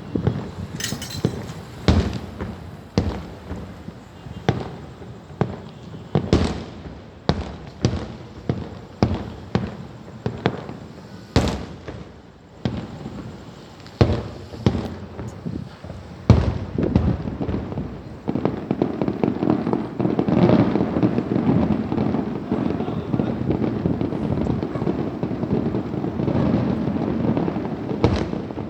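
Fireworks going off: a string of sharp bangs, about one or two a second, giving way about two-thirds through to a thicker, continuous run of rapid crackling.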